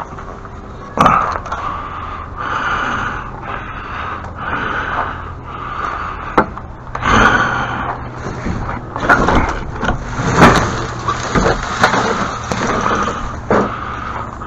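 Repeated scraping strokes, about one a second, broken by sharp knocks and clatters, with the loudest knocks near the end, over a low steady hum.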